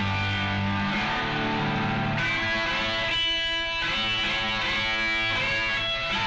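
Fender electric guitar played as a lead: held low notes for the first two seconds, then sustained higher notes that bend and waver in pitch.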